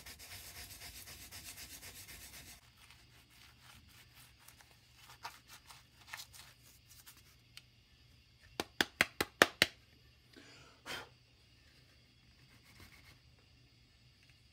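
Sandpaper rubbed back and forth over a block of wood for about two and a half seconds. After that come scattered light clicks and then a quick run of about six sharp taps, the loudest sound.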